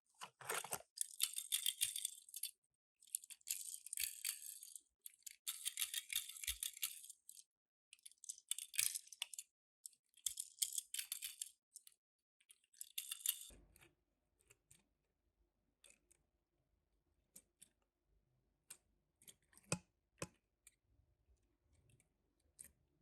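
Toy packaging rustling and crinkling in repeated handfuls for about thirteen seconds as a Tomica die-cast car is unboxed. After that come a few scattered light clicks and taps.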